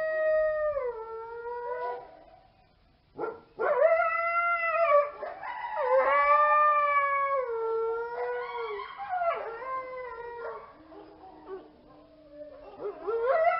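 Coyotes howling: long wavering howls that slide down in pitch, a brief pause about three seconds in, then more howls with short yips among them.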